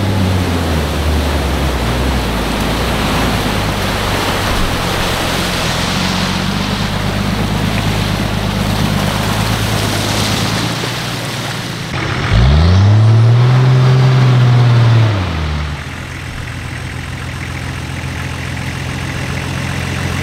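Off-road vehicle engine running under a steady rushing noise while driving over rough ground. About twelve seconds in, the engine revs up sharply, holds high for about three seconds, then drops back to a lower, quieter run.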